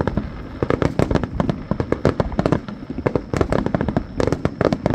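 Fireworks going off in rapid succession: a dense, irregular run of sharp bangs and crackles, several a second without a break.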